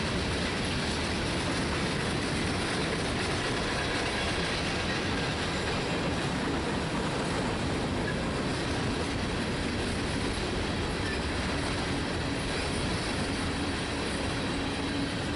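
Freight train of open-top hopper cars rolling past: a steady rumble and clatter of steel wheels on rail, with a faint high wheel squeal, the end of the train going by near the end.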